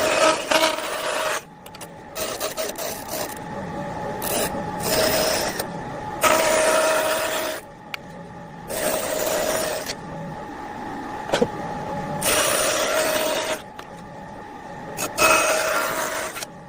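A tool cutting or rasping wood in repeated strokes, each lasting about a second, with quieter pauses between them.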